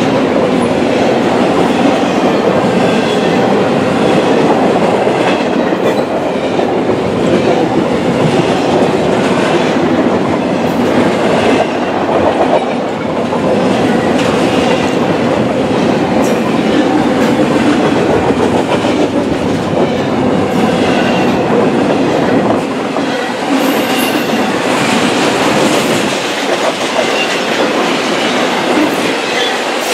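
Double-stack intermodal train's loaded well cars rolling past at speed: a steady, loud rumble of wheels on rail, with repeated clacks as the wheels cross rail joints.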